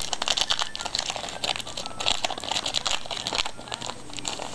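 Foil trading-card pack wrapper crinkling and tearing as a pack is opened and handled, a dense crackle that eases off near the end.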